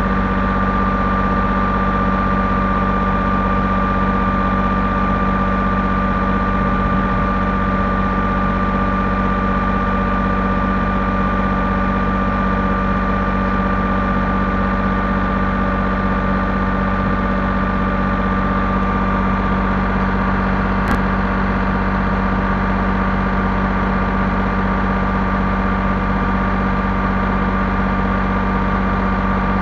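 Bulldozer engine running at a steady speed, its pitch and level unchanging.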